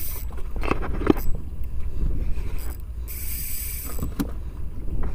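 Sea water slapping against a small boat's hull, with wind buffeting the microphone. A few short knocks come around one second and four seconds in, and a brief hiss of spray or wind about three seconds in.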